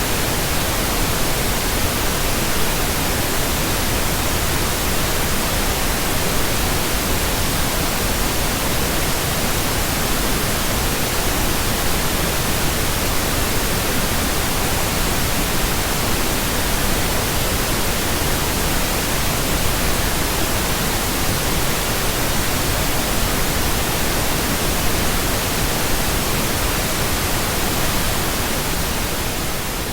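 Steady computer-generated pink noise, an even hiss spread across all pitches, which starts to fade out near the end.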